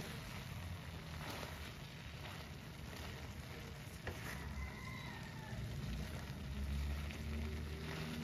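Sliced bitter melon and salted egg frying in a pan, a steady gentle sizzle, while a silicone spatula stirs and scrapes through it with a few light scrapes.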